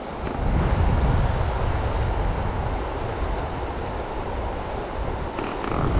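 Steady rush of a shallow river, with a deep wind rumble on the microphone that grows louder about half a second in.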